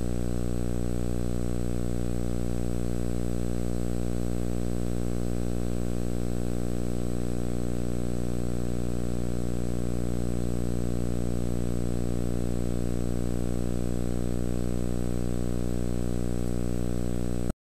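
Steady electrical hum with a stack of buzzing overtones, unchanging throughout, then cutting off suddenly near the end.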